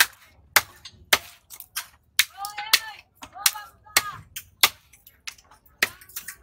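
Heavy knife chopping through hamour (grouper) head and bone onto a wooden log chopping block: about ten sharp chops, roughly two a second, with a short pause near the end.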